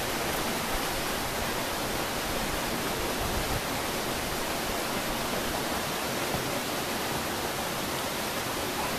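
Steady, even rushing of flowing water from a rocky mountain stream, with no change in level.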